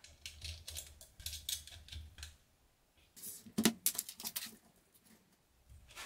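Small parts and tools being handled during workbench assembly: a quick run of light clicks in the first two seconds, then a louder cluster of knocks and clatters around the middle.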